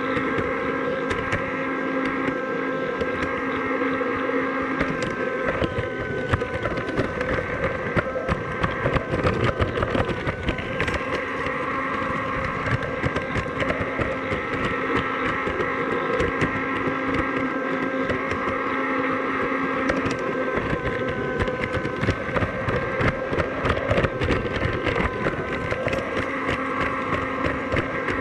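The motor and gears of a scratch-built G scale garden railway tram running steadily, heard close up from on board: a steady whine with a dense rattle and clicking from the wheels on the track.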